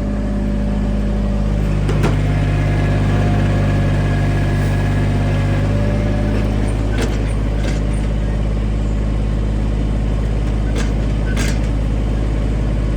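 Kubota G231 ride-on mower's engine running steadily under throttle, with a few light clicks and knocks over it.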